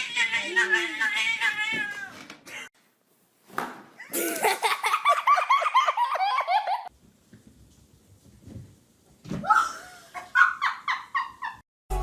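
High-pitched human laughter in three bouts of rapid pulses, with short pauses between them.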